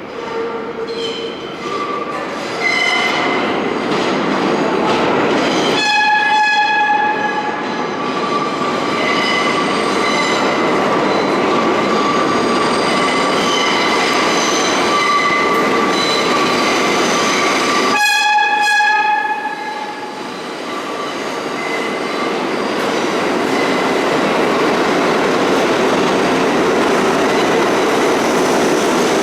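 An R32 subway train rumbling past through the station, its horn sounding two blasts about twelve seconds apart, each about a second long. A high steady whine sounds between them.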